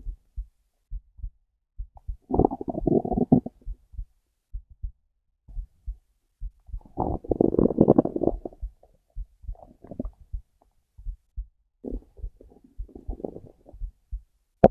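A hungry stomach growling in four rumbles, the loudest and longest near the middle. Steady low heartbeat thumps run underneath.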